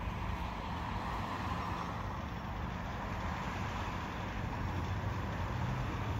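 Steady city road traffic noise, with a low rumble of passing vehicles such as a bus.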